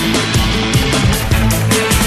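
Rock background music with a driving drum beat and distorted guitar.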